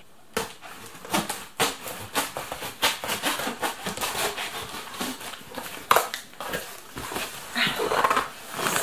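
Large cardboard speaker box being handled and opened by hand: a run of scraping and rustling with sharp knocks and clicks of the cardboard.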